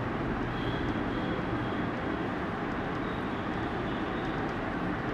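Marker pen writing on a whiteboard, with a few faint high squeaks, over steady background noise.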